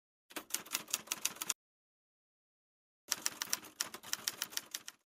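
Typewriter keys clattering in two quick runs, about eight strikes a second, as a title types itself out letter by letter. The first run lasts just over a second; after a pause, a second run lasts about two seconds.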